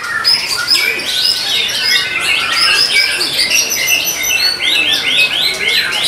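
White-rumped shama (murai batu) in full contest song: a rapid, unbroken stream of chirps and whistled sweeps.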